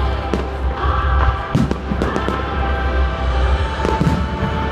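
Aerial fireworks bursting, about four bangs in a few seconds, under continuous background music.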